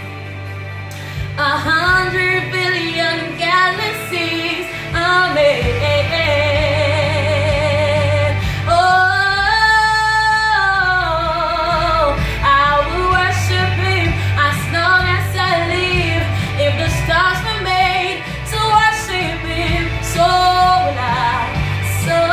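A woman singing a worship song solo with heavy vibrato and melodic runs, holding one long high note about halfway through, over a steady low instrumental backing.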